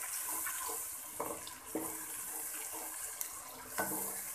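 Onion-and-tomato tarka sizzling in hot oil in a pot, with a steady hiss, stirred with a wooden spoon that scrapes a few times.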